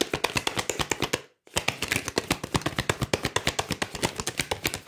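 A deck of heart-shaped oracle cards being shuffled by hand: a rapid run of card flicks and taps, about ten a second, with a brief break about a second in.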